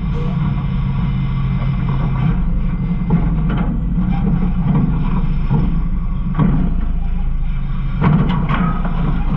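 Garbage truck's engine running steadily, with a few knocks and clatters from the hopper, the loudest about six and eight seconds in.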